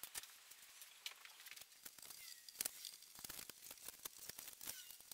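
Faint scattered clicks and crinkling of hands handling tape and small fittings at a tabletop edge.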